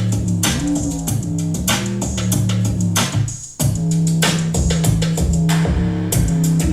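A pop song with a steady drum beat and bass, played back through a Google Nest smart speaker; the music breaks off for a moment about three and a half seconds in, then carries on.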